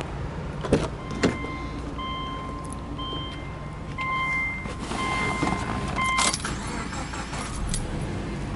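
A car's warning chime beeps about six times, roughly once a second, while keys jangle and click at the ignition of a 2006 Subaru Legacy Touring Wagon. There is a louder clatter after the last beep.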